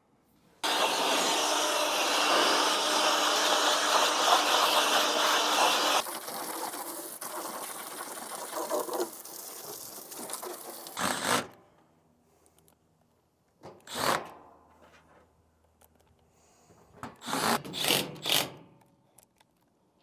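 Water from a garden hose spray nozzle rinsing an outdoor condenser coil, a steady spray that drops quieter about six seconds in and stops near eleven seconds. Then a cordless driver runs the unit's panel screws back in with several short bursts.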